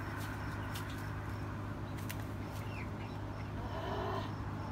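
Chicken clucking faintly, with a short louder call about four seconds in, over a steady low hum.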